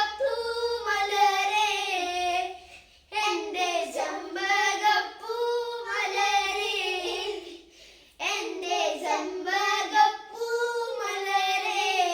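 Children singing a Malayalam folk song (nadan pattu) unaccompanied, in three sung phrases with short pauses between them.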